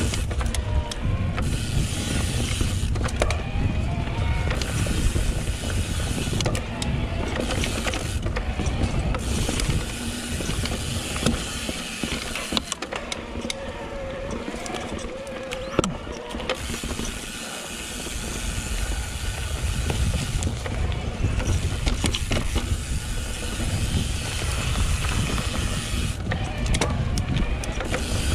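Riding noise of a YT Decoy electric mountain bike on dirt single track, picked up by a GoPro on the rider: wind buffeting the microphone and tyre roar, with frequent rattles and knocks from the bike over bumps. A faint wavering whine rides underneath, from the e-bike's motor. It eases off for a few seconds about halfway through.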